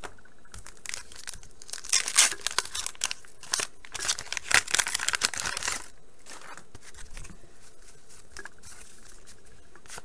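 Wax-paper wrapper of a 1989 Bowman baseball card pack being torn open and crinkled, with a dense run of crackling tears from about two to six seconds in. Afterwards there is only faint rustling as the cards are handled.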